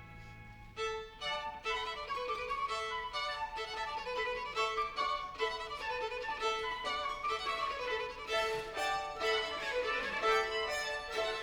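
Orchestral music with no voice. A fading held chord gives way, about a second in, to a fast, busy run of short, detached notes over a note that keeps coming back in the middle register.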